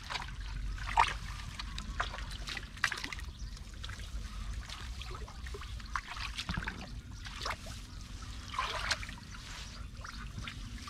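Water trickling and splashing in irregular bursts, several small splashes over a few seconds, over a steady low rumble.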